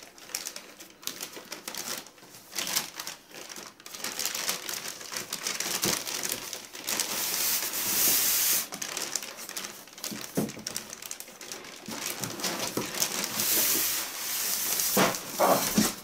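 Plastic bag rustling and crinkling as a packaged printer in polystyrene end blocks is dragged out of its cardboard box by the bag, with packaging scraping and a few knocks. The rustling swells twice, and the knocks are sharpest near the end.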